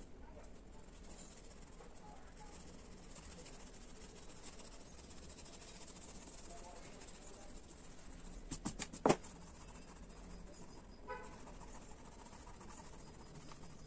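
Faint rubbing of oil pastel and fingers on paper as the drawing is shaded and blended. About two-thirds through comes a quick run of four or five sharp clicks, and a short horn-like toot follows soon after.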